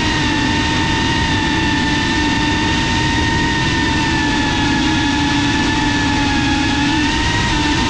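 FPV quadcopter's brushless motors and propellers whining steadily in forward flight, as picked up by the onboard GoPro, with a constant roar of prop wash underneath. The pitch sags a little and comes back up near the end.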